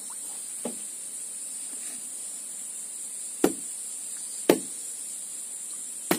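Steady high-pitched insect chorus, broken by a faint knock near the start and then three sharp, loud knocks in the second half.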